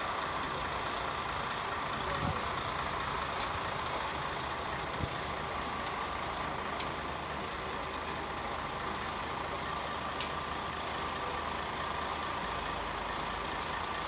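Single-decker First bus idling at a stop, with a steady hum and whine and a sharp tick about every three and a half seconds.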